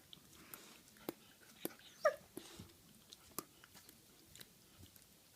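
A dog's teeth clicking together as it chews, sharp clicks about twice a second, with one brief high squeak about two seconds in.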